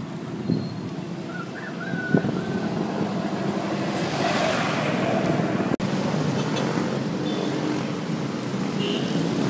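A motor vehicle engine running steadily amid road traffic noise, a little louder from about four seconds in.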